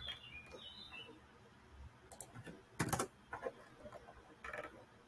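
Sparse clicks of a computer mouse and keyboard, a sharper pair of clicks about three seconds in.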